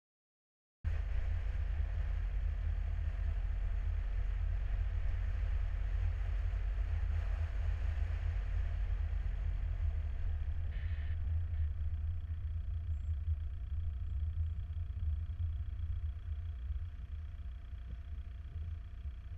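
A car driving, heard as a steady low road rumble with tyre noise. The sound starts a second in and grows quieter over the last third as the car slows.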